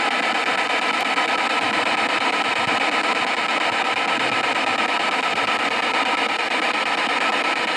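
Handheld spirit box, a radio rapidly sweeping through stations, playing a steady hiss of static through its small speaker.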